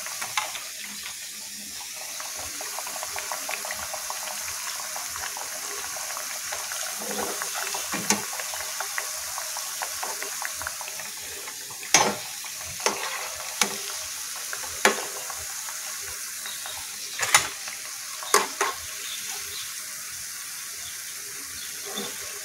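Batter-coated banana fritters deep-frying in hot oil with a steady sizzle. In the second half a metal slotted spatula clinks sharply against the pan and the fritters several times.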